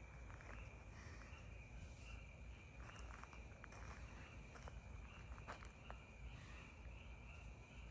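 Quiet night ambience: a faint, steady, high-pitched insect trill that swells about twice a second, with a few faint clicks.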